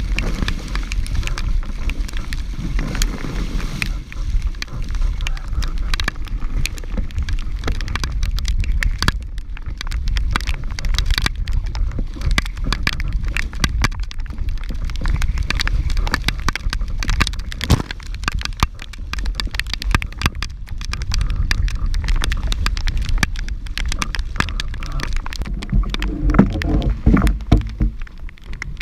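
Wind buffeting a boat-mounted microphone and water rushing along the hull of a sailing canoe moving fast through a rain squall. Over it runs a dense patter of sharp ticks from spray and raindrops striking the camera.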